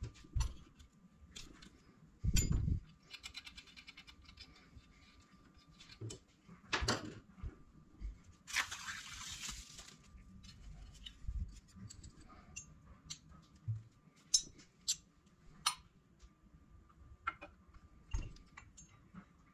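Turbocharger parts being handled and fitted together on a plastic parts tray: scattered metal clicks, clinks and taps, a dull knock about two and a half seconds in, and a second of rustling about halfway.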